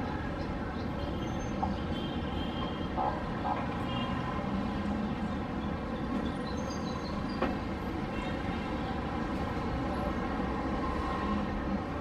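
Steady hum of distant city traffic waking up at dawn, with a few short high chirps and one sharp click about seven seconds in.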